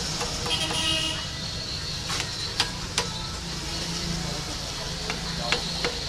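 Small hammer tapping on the metal collar and handle of a bolo clamped in a bench vise: six sharp taps, three in quick succession and then three more a couple of seconds later, over a steady low hum. A short horn-like toot sounds near the start.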